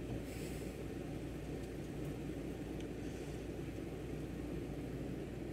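2015 Ford Taurus engine idling steadily, a low even rumble with no change.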